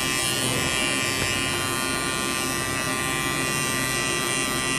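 Electric tattoo machine buzzing steadily as the needle works the skin.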